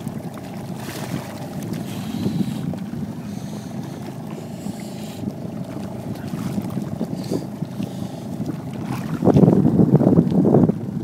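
Wind rumbling on the microphone over water lapping at the boat, with a louder burst of rustling near the end.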